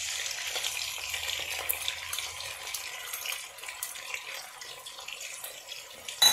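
Pre-boiled beef pieces frying in hot oil in a pot: a steady sizzle with fine crackles, as ginger-garlic paste goes in. A brief loud clink comes right at the end.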